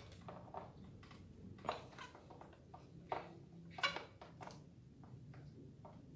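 Scattered light clicks and taps of small metal parts being handled as a cable end is fitted into the carburetor linkage of a Honda UMR435T four-stroke brush cutter, with a few sharper clicks about two and four seconds in.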